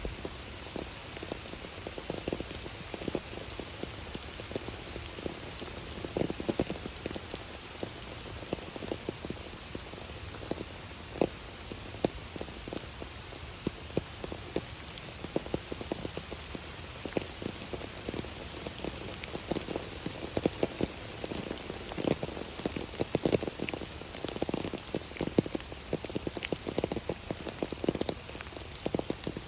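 Steady rain falling, with many irregular drops hitting close by as sharp little taps, more of them in the second half.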